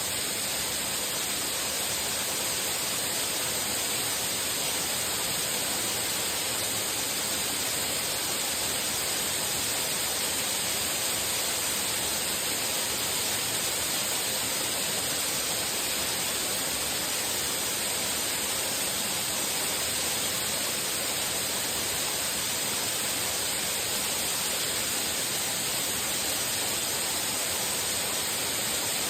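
Waterfall: water pouring down and splashing in a steady, unbroken rush.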